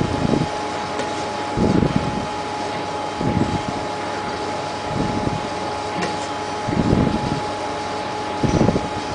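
CNC laser engraving machine with a wheel-type rotary attachment running: a steady hiss and a steady high whine, with a low rumble that swells and fades about every one and a half to two seconds, six times.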